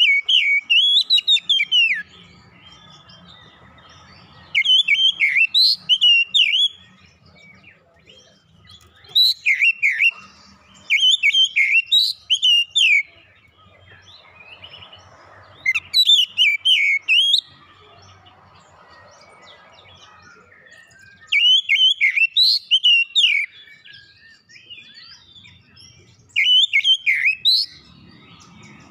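Oriental magpie-robin (kacer) singing: about seven bursts of rapid, rising and falling whistles and chirps, each one to two seconds long, separated by pauses of a few seconds.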